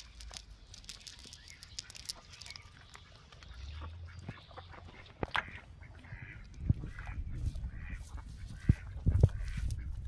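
A cast net being handled on the ground, its lead sinkers clicking and knocking, with several sharp knocks in the second half. Farm fowl call repeatedly in the background.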